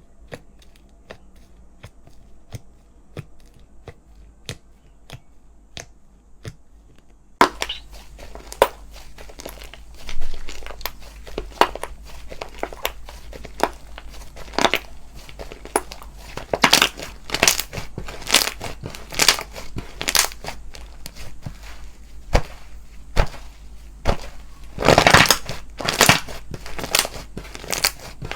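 Slime being worked by hand, giving a run of crisp clicking and crackling pops. The pops are soft at first and become much louder and denser about seven seconds in, with a few longer crackles near the end.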